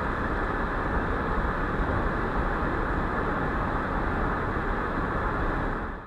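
Steady road and wind noise of a car driving at freeway speed, fading out just at the very end.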